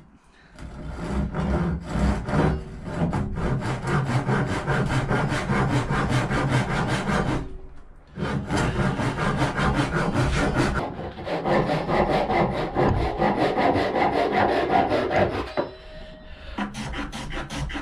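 Japanese ryoba pull saw crosscutting a wooden board to length by hand in quick, even strokes. There is a short pause about seven and a half seconds in, then it saws again, and the sawing stops about two seconds before the end.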